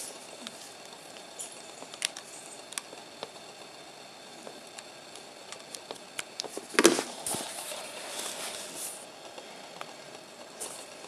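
Handling noise from a USB cable being held and plugged in: scattered small clicks and faint rustling, with one louder rustle and knock about seven seconds in.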